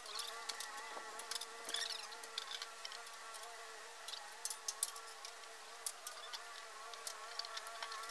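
A steady, even buzzing hum with many overtones, with scattered sharp clicks and ticks over it.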